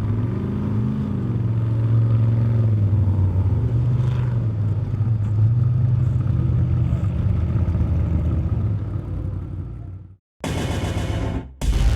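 Off-road race truck engine running at speed, its pitch rising and falling a little. The sound cuts out abruptly near the end.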